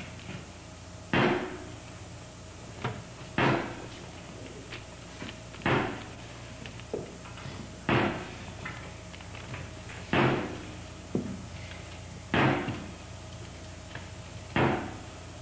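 Seven heavy thuds on a stage floor, evenly spaced about two seconds apart, each dying away briefly, with fainter knocks and scuffs between them from the dancers' movements.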